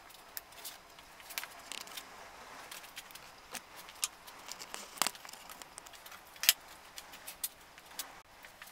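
Irregular light clicks and taps over a faint steady hiss, the sharpest about five seconds in and again about six and a half seconds in.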